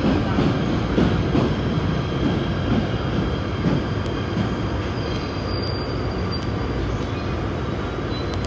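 PATH subway train car running into a station and slowing toward a stop, a steady wheel-on-rail rumble heard from inside the car.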